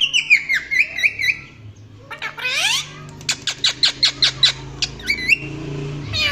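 Parrot calling. It starts with a run of quick rising-and-falling chirps, then gives a harsh squawk about two and a half seconds in. A fast series of short, sharp chirps follows, about six a second, and another squawk begins near the end.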